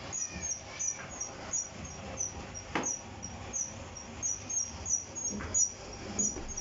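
Paper lamination machine running: a steady low hum with a rhythmic high-pitched squeak, about four squeaks a second, from its rollers turning.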